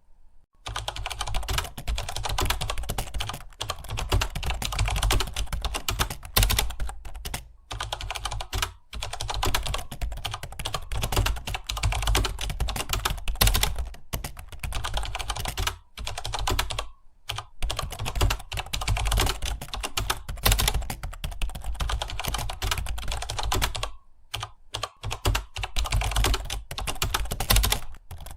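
Rapid continuous typing on a computer keyboard, dense key clicks broken by short pauses of under a second and one longer pause about 24 seconds in.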